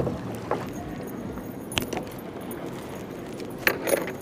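A kayak being paddled with a double-bladed paddle: a steady wash of water with a few sharp clicks and knocks of the paddle and gear, two of them close together near the end.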